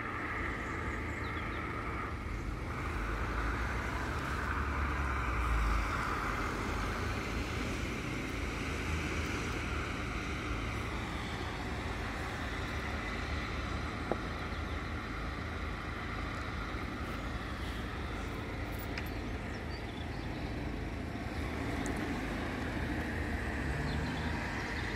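Level crossing warning alarms sounding steadily while the barriers are down, over a continuous low rumble.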